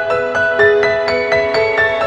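Piano music: a steady run of struck notes, about four a second, ringing over held tones.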